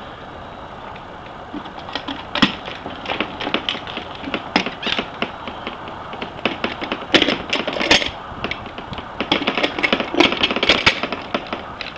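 Latches and small metal hardware on a toy latch barn clicking and rattling irregularly as they are handled.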